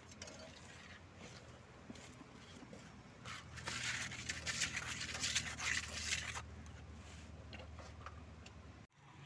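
Steel trowel scraping damp cement mix across a metal-framed mesh screen, a dense rasping of quick strokes that grows loud for about three seconds in the middle, with fainter scrapes before and after.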